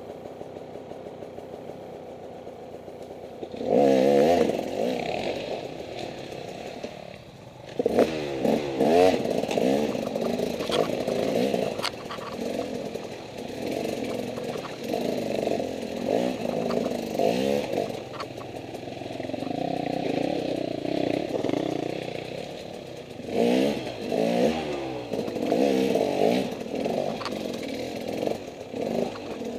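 Enduro dirt-bike engine running off-road. It ticks over low for the first few seconds, then is revved in repeated bursts, its pitch rising and falling with the throttle, with a steadier stretch in the middle.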